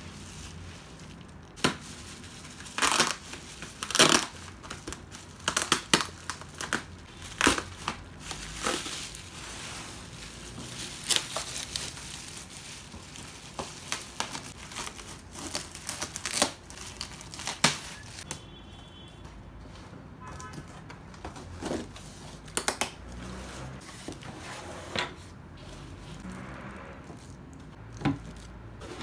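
Bubble wrap and plastic packaging crinkling and tearing as they are pulled off by hand. A dense run of sharp crackles gives way to occasional ones in the last third.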